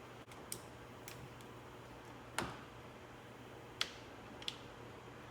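A handful of short, sharp clicks and taps from small hand work, the loudest about halfway through, over a faint steady hum.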